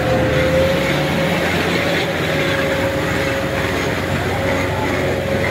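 Tractor diesel engines running hard under load, a steady heavy drone with a held whine.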